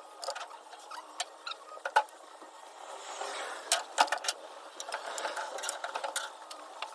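Irregular clinks, clicks and knocks of hand tools and metal parts being handled while working on engine mount brackets, at uneven intervals with no engine running.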